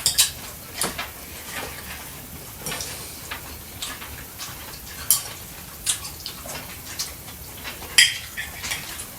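Cutlery clinking and scraping on plates while eating, in scattered sharp clicks; the loudest comes about eight seconds in.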